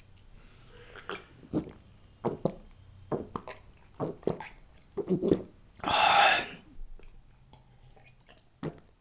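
A person gulping Coke from a glass mug, swallowing in a run of short gulps about twice a second, with a louder rushing sound around six seconds in.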